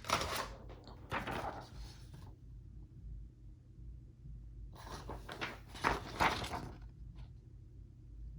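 1923 Remington Portable #2 typewriter being handled after typing stops: two longer sliding, rattling mechanical noises a few seconds apart, like the carriage being moved, and a single click near the end.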